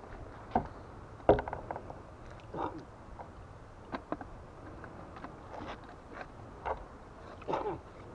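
Handling noise from a fishing rod, reel and line worked close to the microphone: a scatter of short knocks and clatters, the loudest about a second in, over a steady low rumble.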